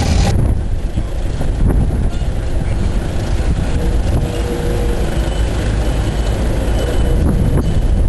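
Rumble of a ploughing engine at work with wind buffeting the microphone; a steady engine tone cuts off abruptly about a third of a second in.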